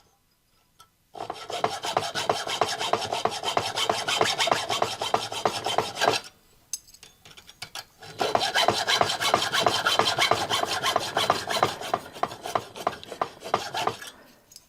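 Hand saw cutting the sprue off a small casting held in a vise, its blade greased with Burr-Life: quick back-and-forth rasping strokes in two runs, with a short pause between them.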